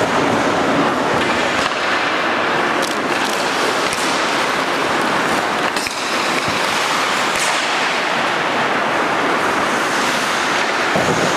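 Ice hockey rink noise during play: a steady rushing hiss of skates on the ice and arena ambience, with a few sharp knocks spread through it.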